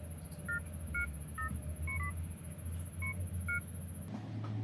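Touch-tone keypad beeps from a Samsung Galaxy Y's phone dialer as number keys are tapped: about seven short beeps, unevenly spaced, over a steady low hum.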